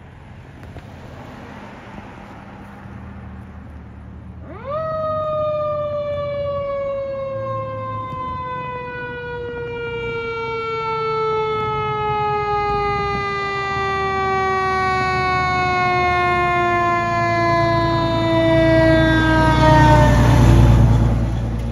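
Fire engine siren winding up sharply about five seconds in, then its pitch sinking slowly and steadily for about fifteen seconds before cutting off. Under it the engine's low rumble grows louder as the truck passes close, loudest near the end.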